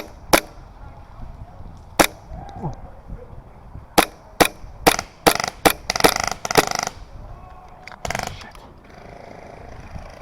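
Airsoft rifle firing: sharp single shots spaced a second or two apart, coming quicker after about four seconds, then a short rapid burst around six seconds in. There is a brief rushing noise about eight seconds in.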